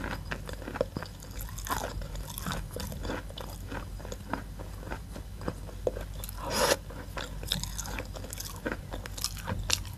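Close-up chewing of chalk: a steady run of small crunches and crackles in the mouth, with one louder crunch at about six and a half seconds.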